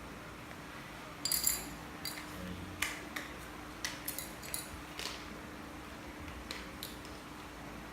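Small hard plastic toy pieces being handled, giving about a dozen light, irregular clicks and clinks over a faint steady hum.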